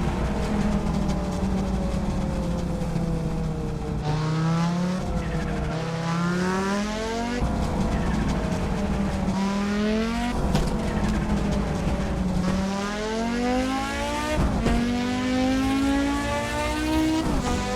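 Audi Sport quattro S1's turbocharged five-cylinder engine driven hard. Its pitch climbs and then drops sharply about five times as it works up and down through the gears.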